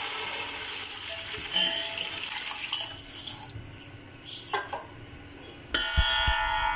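Water being poured from a glass into a steel pot of hot oil with fried onions and cumin, splashing for about three seconds and then dying down. Near the end comes a sudden metallic clang that rings for about a second, as the pot's lid goes on.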